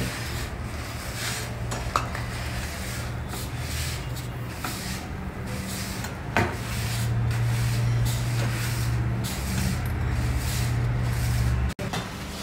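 A folded cotton cloth rubbing and pressing a half-cooked khakra against a hot tawa, a scratchy, uneven sound, over a steady low hum.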